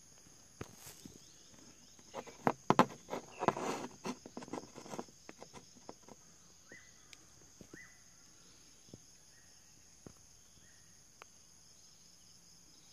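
A small clear crystal elephant figurine is handled on a hard tabletop. A cluster of clicks, taps and rubbing comes about two to five seconds in, followed by a few scattered light knocks. A steady, faint high chirring of insects runs underneath.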